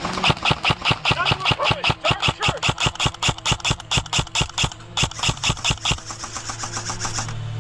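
Airsoft electric gun (AEG) firing a rapid string of shots, about five or six a second, each shot a sharp crack of the gearbox and piston. Near the end the shots give way to fainter, quicker clicking.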